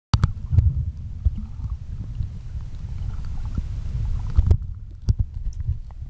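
Muffled, uneven low rumble of water movement heard from a camera underwater, with a few sharp clicks and knocks scattered through it.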